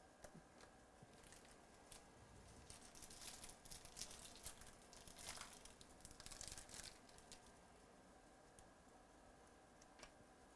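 A trading-card pack wrapper being torn open and crinkled in the hands, a few seconds of crackly tearing starting about two seconds in. Faint ticks of cards being handled come near the start and end.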